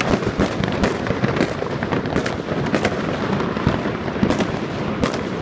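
Many fireworks going off at once: a dense, unbroken crackle of bangs, with louder single reports standing out every second or so.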